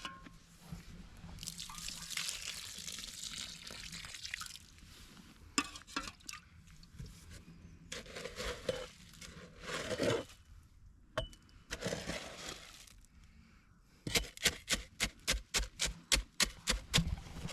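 Water poured onto dry ready-mix concrete and worked in, with scattered scrapes and knocks. Near the end comes a fast, even run of sharp strikes, about three a second.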